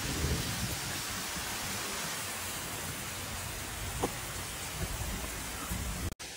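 Heavy rain pouring down steadily on a gravel road and grass during a summer thunderstorm. It cuts off abruptly just before the end.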